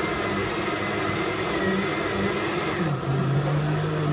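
Countertop blender motor running steadily as it blends a drink in its glass jar. About three seconds in, its hum drops in pitch and it runs on lower.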